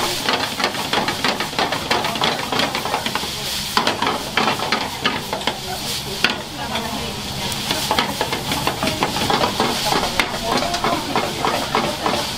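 Food sizzling in frying pans on a steady hiss, with many quick clicks and scrapes of metal utensils stirring and knocking against the pans.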